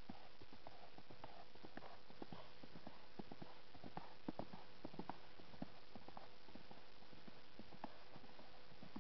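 Hoofbeats of a Thoroughbred horse moving under saddle over soft dirt arena footing: a run of irregular, soft thuds, the loudest a little before halfway.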